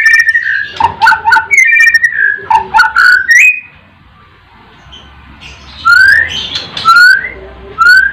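White-rumped shama singing: a quick run of varied whistled phrases and sharp notes, a pause of about two seconds, then three short rising whistles about a second apart.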